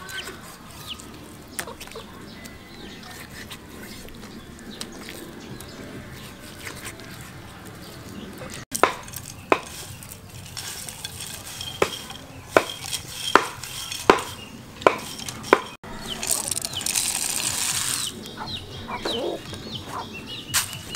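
Food preparation sounds: quiet knife work on a wooden board, then a run of sharp cracks about every 0.7 seconds as roasted peanuts are handled by hand in a bowl. Near the end comes a short rattling rush as the peanuts are worked into a stone mortar, followed by a few scattered clicks.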